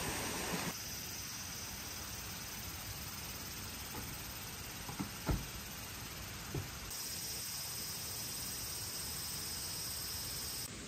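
Summer forest ambience: a steady hiss with a high, even insect drone, heard briefly at the start and again from about seven seconds in. A few faint knocks come near the middle.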